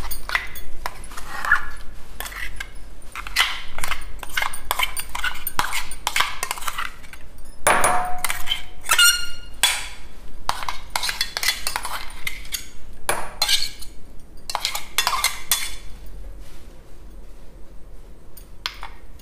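Metal spoon scraping and knocking against a stainless steel mixer jar and a small steel bowl while thick chilli chutney paste is scooped out, a steady run of clinks and scrapes. About nine seconds in, the steel rings briefly.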